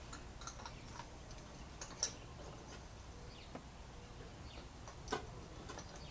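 Small metal parts and hand tools being handled, giving faint, irregular light clicks and clinks, with two sharper clicks about two and five seconds in.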